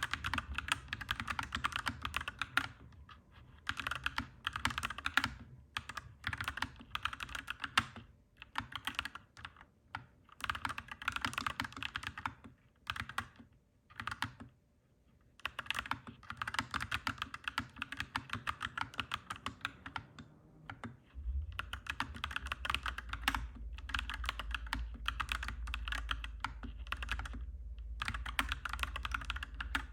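Mechanical keyboard typing, clacky keystrokes in fast bursts with brief pauses. A low steady rumble comes in suddenly about two-thirds of the way through, under the typing.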